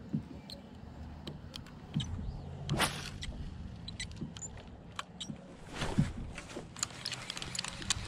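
Fishing reel being cranked to retrieve a lure, a low whir with many light clicks and small knocks of gear, and two louder rustling swells about three and six seconds in.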